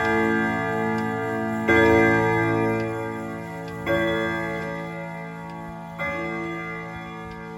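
Howard Miller Barrington grandfather clock with a freshly oiled Hermle 1161-853 movement striking the hour for 12 o'clock: three ringing strikes evenly spaced about two seconds apart, each dying away slowly, with the pendulum ticking underneath.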